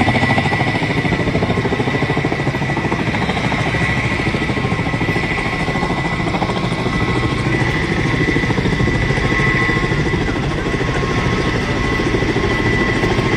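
Kamov Ka-32 coaxial-rotor firefighting helicopter hovering low over water with its bucket slung beneath: steady, rapid rotor chop with a high, steady turbine whine over it.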